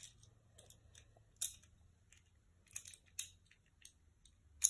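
Plastic Beyblade spinning-top parts clicking as they are handled and fitted together by hand: scattered sharp clicks, the loudest near the end.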